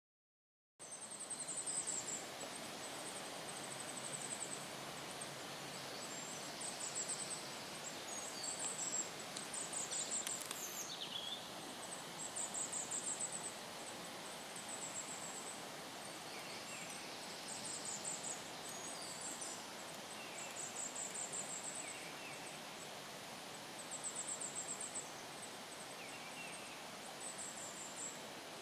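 Goldcrest song: short, very high, thin phrases of rapidly repeated notes, given every two or three seconds over the soft background hiss of woodland.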